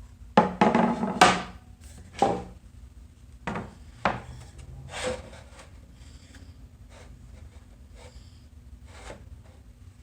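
Cedar boards being handled, knocking and scraping against each other and the work surface: a quick clatter of knocks in the first couple of seconds, a few single knocks after it, then only faint taps.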